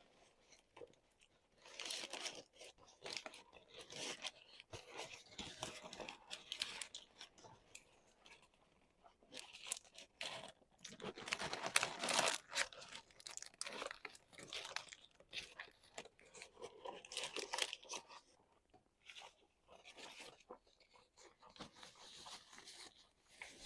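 Food being chewed and bitten, with crisp crunches that come in bursts. The loudest cluster comes about halfway through.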